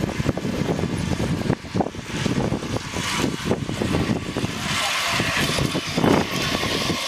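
Wind buffeting the microphone. About halfway through, a rising whirring hiss builds as two riders' zip-line trolleys run along the steel cables and pass overhead.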